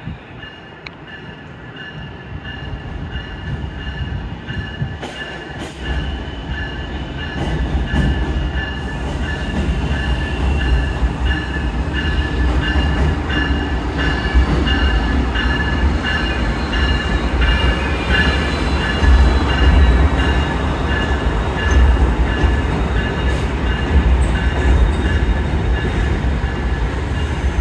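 Amtrak passenger train crossing a steel truss railroad bridge overhead, a low rumble that grows over the first ten seconds and then holds steady. A few sharp clanks come from the wheels over the rail joints early on, and a steady high-pitched wheel squeal runs through.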